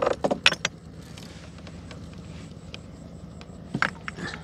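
A small boat motor running steadily with a low hum. Over it come a quick run of sharp knocks and clatter at the start and a couple more near the end, from handling the gill net and fish aboard.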